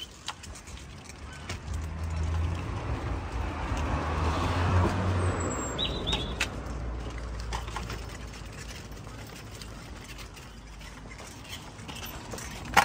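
A motor vehicle driving past, its low engine hum and tyre noise swelling about two seconds in, peaking around four to five seconds and then fading away.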